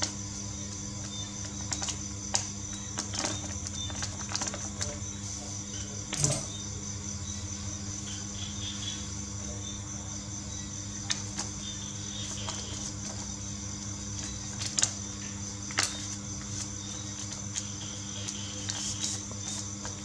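A sheet of paper being folded and creased by hand: scattered crisp rustles, taps and creasing clicks, the loudest about six seconds in, over a steady background hum.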